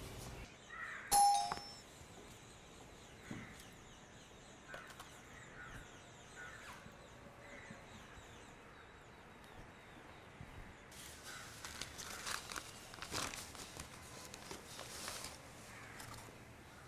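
A single short chime rings out about a second in. Near the end, a paper bag crinkles as it is handled.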